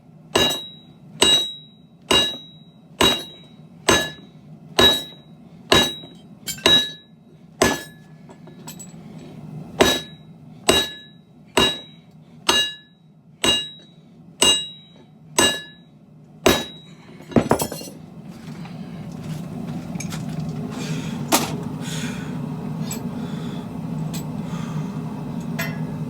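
Hand hammer striking a hot Damascus steel billet on an anvil, one ringing blow about every second, some eighteen blows with one short pause. The hammering stops about two-thirds of the way through, leaving a steady low hum with a few light knocks.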